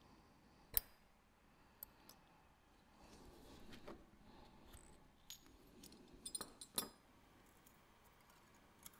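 Faint metallic clicks and clinks of watchmaking tools and a mainspring barrel against a steel bench block while the barrel arbor is removed. There is one sharp click about a second in, a few light ticks, then a quick run of clinks near seven seconds.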